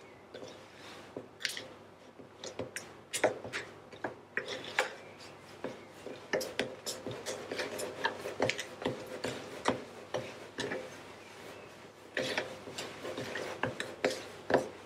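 Cutlery knife scraping and clicking against the side of a mixing bowl in irregular strokes as it works sticky scone dough round and round.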